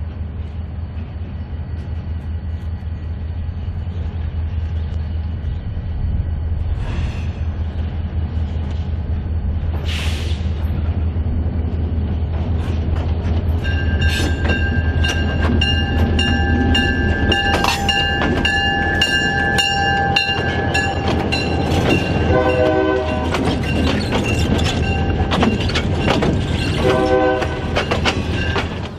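A pair of EMD GP20 diesel locomotives running close by, their low engine drone growing louder. About halfway through the air horn sounds in long blasts that last almost to the end, over wheels clicking on the rail joints.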